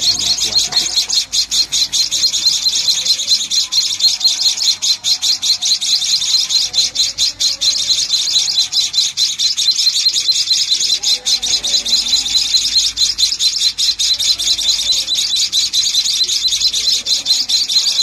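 A brood of nestling songbirds chirping nonstop in a loud, rapid, high-pitched chorus.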